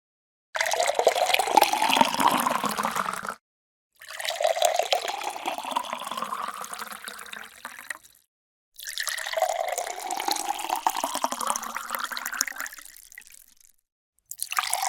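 Water poured into a glass, three separate fills, each with a ringing pitch that rises as the glass fills up, cut off abruptly between them; a fourth fill starts near the end.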